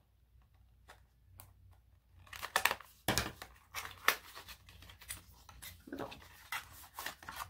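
Scissors snipping into a small cardboard product box, with faint clicks at first. About two seconds in it gives way to a run of sharp crackles as the box is torn open and its paper packaging handled.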